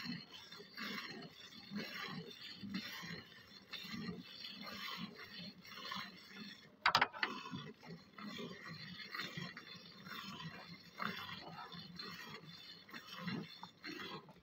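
Hand milking into a steel bucket: streams of milk squirting into the pail in a steady rhythm of alternating strokes. A sudden sharp noise about seven seconds in is the loudest moment.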